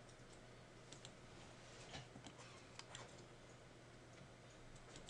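Near silence with a few faint, scattered computer mouse clicks.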